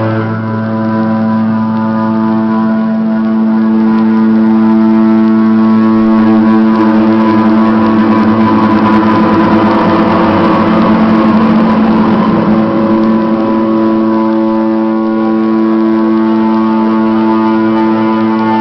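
Droning music of long held tones that form a sustained chord. The lower note changes right at the start, and a rushing, noisy swell builds and fades in the middle.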